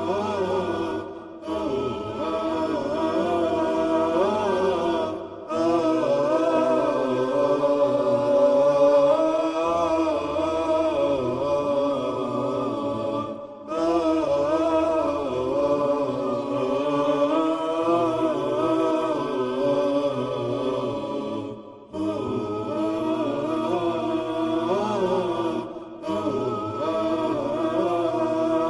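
Chanted vocal theme music, an Islamic nasheed-style melody sung in long, wavering phrases over a steady low hum, with brief breaks between phrases every several seconds.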